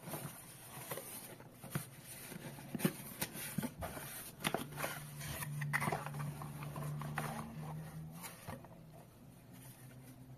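Cardboard box being opened by hand and a small plastic thermal receipt printer slid out and turned over: scattered rustles, scrapes and light knocks of cardboard and plastic. A faint low hum runs underneath through the middle.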